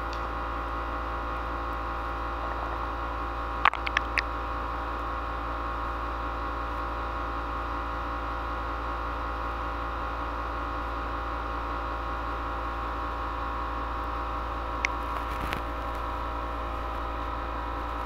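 Steady electrical hum and hiss with several steady tones running under it. It is broken by three quick sharp clicks about four seconds in and two more single clicks around fifteen seconds in: computer mouse clicks.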